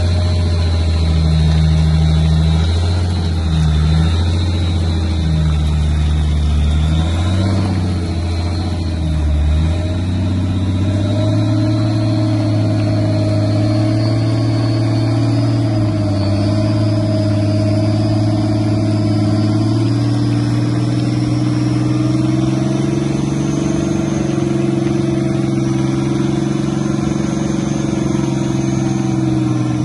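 Off-road 4x4's engine running under load at fairly steady revs, with a few short steps in engine note in the first ten seconds and a faint high whine that slowly climbs in pitch.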